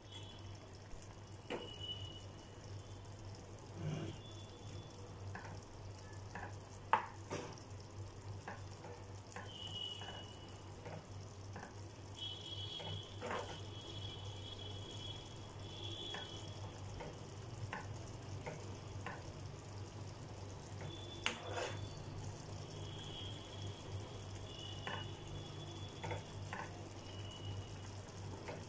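A steel spoon stirring a simmering potato and pea curry in a non-stick pan, with scattered clinks and scrapes of the spoon against the pan, loudest about 7 and 21 seconds in. A steady low hum runs underneath.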